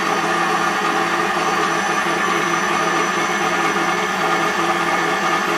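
KitchenAid stand mixer's motor and gearbox running steadily with no load at one of its lower speeds. It is being run empty to work separated grease back through the gearbox.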